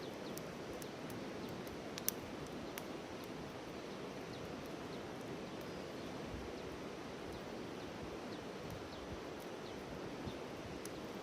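Wood campfire crackling: a steady hiss of burning firewood with scattered sharp pops, the loudest about two seconds in.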